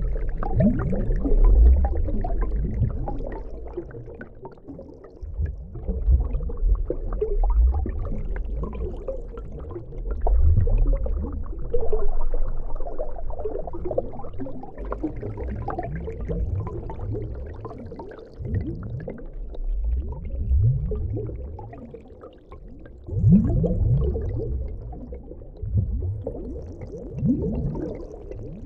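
Underwater ambience in shallow water: a low rumbling surge with gurgling, swelling and fading every few seconds.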